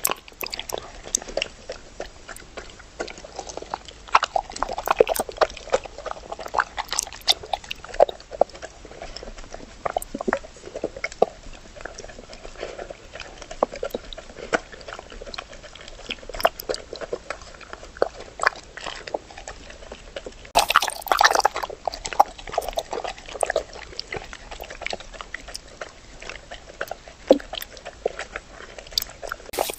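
Golden retriever eating wet food from a stainless steel bowl: steady chewing, smacking and licking, with many small clicks of tongue and teeth against the metal. A louder stretch of noise comes about two-thirds of the way through.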